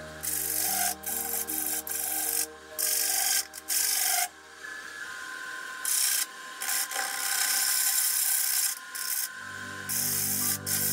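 A turning tool scraping the foot of a spinning sycamore bowl on a wood lathe, the rough cutting sound starting and stopping in several bursts as the tool meets and leaves the wood. Background music plays underneath.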